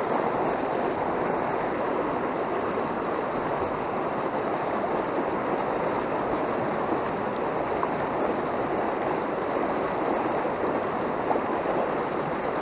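Fast, shallow mountain stream rushing over rocks and rapids: a steady, unbroken rush of water.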